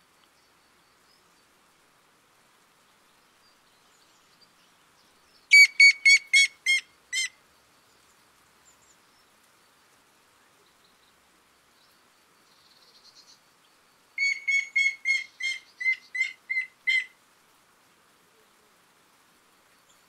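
Grey-headed woodpecker singing: two series of clear, evenly spaced whistled notes. The first, about five seconds in, is about seven notes that fade and drop slightly in pitch. The second, near the three-quarter mark, is about ten notes.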